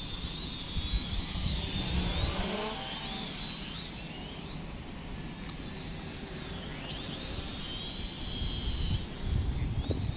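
Holy Stone HS155 mini quadcopter in flight: a thin, high motor-and-propeller whine that wavers up and down in pitch as it manoeuvres, with wind rumbling on the microphone, stronger near the end.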